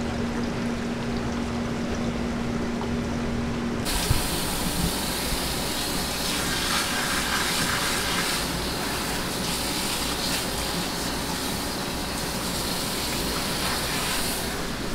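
Water trickling in a live-fish tank with a steady low hum. About four seconds in, this gives way suddenly to the steady hiss of a hose spraying water over a wet wooden chopping block as a fish is rinsed, with a single knock just after the change.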